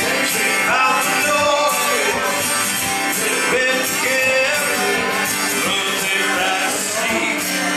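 A man singing into a microphone while strumming an acoustic guitar: a live solo performance that carries on without a break.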